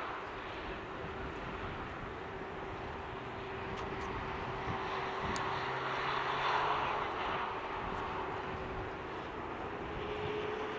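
Jet airliner's engines as the plane passes, a steady rushing with a held tone that swells to its loudest about six to seven seconds in and then eases a little.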